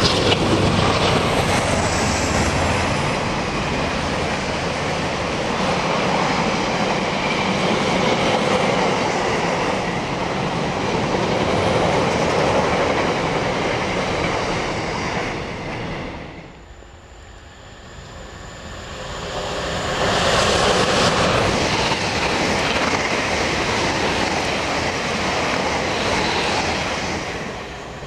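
Locomotive-hauled container freight train passing through a station, a loud steady rumble with wheels clattering over the rail joints. The sound dies away about sixteen seconds in, then another train builds up loudly from about twenty seconds.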